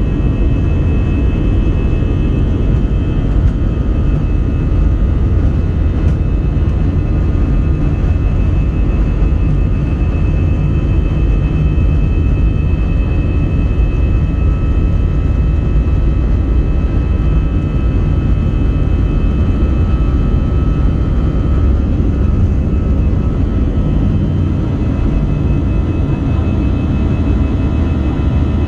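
Airbus A320-200 jet engines heard from inside the cabin: a loud, steady low rumble with thin, high whining tones running over it.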